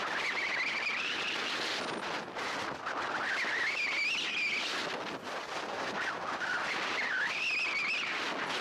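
Strong wind rushing over the microphone, with a thin wavering whistle that rises and falls in pitch and comes and goes three times.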